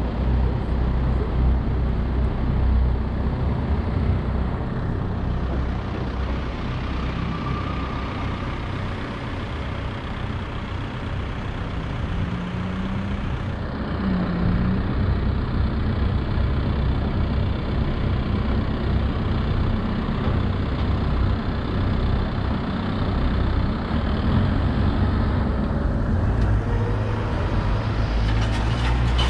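City street traffic: a steady low rumble of passing cars and heavier vehicles, with no clear single event standing out.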